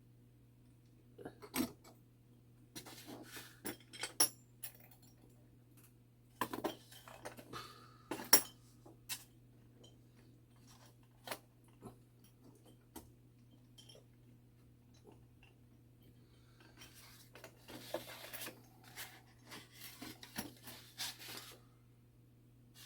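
Small metal clock-movement parts and tools clinking and tapping in scattered clusters as a mechanical clock movement is taken apart, with a busier stretch of scraping and clicking in the last third.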